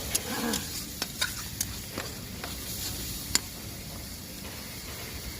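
Onion-garlic masala with ground spices being stir-fried in oil: a low sizzle, with the stirring utensil knocking and scraping against the pan about half a dozen times in the first three and a half seconds.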